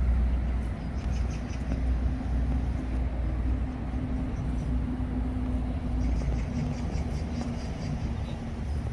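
Steady low rumble of distant city traffic, with faint rapid high-pitched chirping about a second in and again near the end.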